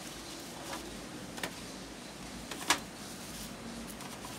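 A few small plastic clicks from hands working at the ink-cartridge carriage inside a Canon PIXMA MP287 printer, one much sharper click a little past halfway.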